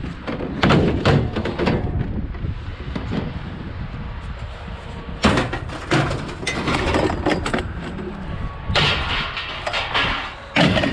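Repeated clanks, bangs and thuds of scrap metal being thrown into a pickup's bed, in clusters about a second in, around the middle and near the end.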